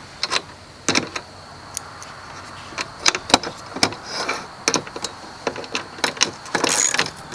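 Small metal hardware clicking and clinking: flat washers and nylon-insert lock nuts being handled and threaded onto the bolts of the Alaskan mill's bracket assemblies. Scattered sharp clicks throughout, with a short rasping scrape near the end.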